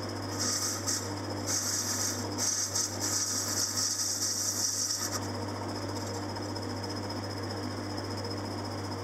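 Metal lathe running with a steady motor hum as it turns a model engine flywheel. About half a second in, the cutting tool comes in with a high, uneven hiss of metal being cut. The hiss stops after about five seconds, leaving the lathe running on its own.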